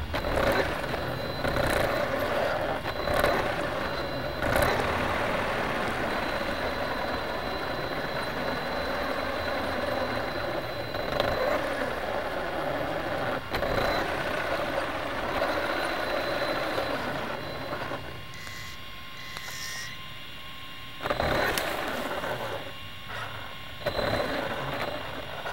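Radio-controlled car running, a steady noise of its motor and drivetrain with several sharp knocks. The noise drops quieter about three-quarters of the way through.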